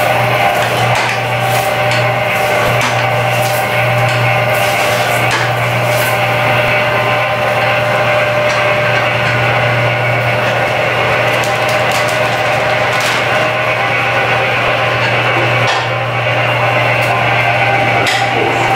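Sung Fa SF606 food slicing machine running: a steady motor hum with several constant tones above it and scattered light clicks.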